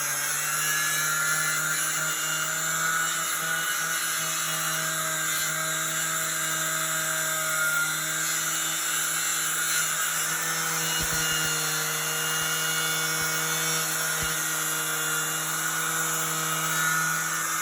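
Milwaukee 11-amp angle grinder with a twisted-knot wire wheel running steadily at a constant pitch, scouring paint and rust off a steel door.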